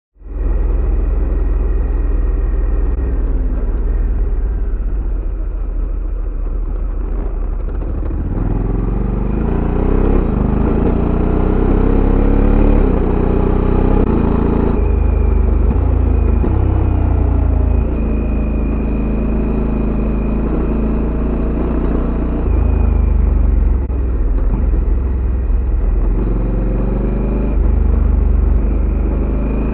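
Honda Africa Twin CRF1100's parallel-twin engine running at idle, heard close to its stock exhaust muffler. The revs climb slowly from about eight seconds in and fall back to idle around fourteen seconds, with two shorter rises later.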